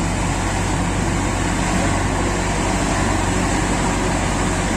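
Heavy diesel engine running steadily at constant speed, with an even low pulsing beat and no change in pitch.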